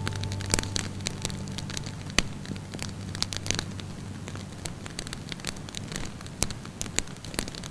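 Wood fire in a fireplace crackling, with irregular sharp pops and snaps over a soft hiss. Low, soft music fades out during the first half.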